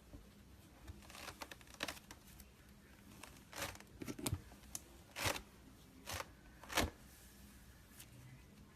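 Slime being worked by hand, giving irregular sticky pops and crackles, loudest in the middle of the stretch.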